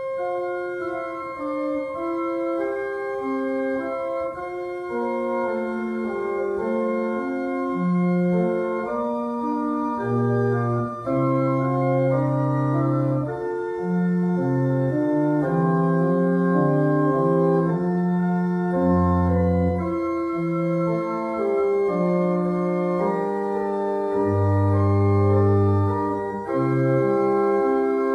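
Organ playing a hymn tune as the closing postlude: held chords moving from note to note, with deep bass notes coming in now and then.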